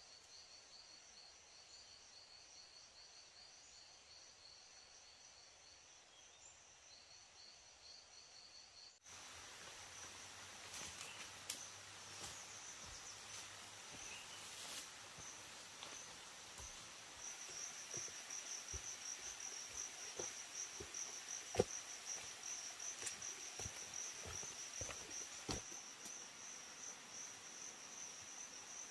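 Insects trilling steadily at a high pitch. About nine seconds in, the sound changes abruptly. After that, scattered sharp knocks and taps join the trilling, one of them much louder than the rest.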